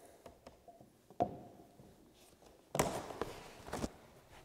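COREtec Pro Plus luxury vinyl planks being handled and pushed into place by hand on the floor. A single sharp knock comes about a second in, then a second or so of scuffing with a couple of knocks near the three-second mark.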